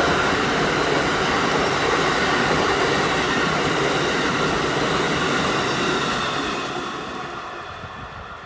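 Amtrak passenger coaches behind an ACS-64 electric locomotive running past: a steady rush of steel wheels on rail that fades from about six seconds in as the train pulls away.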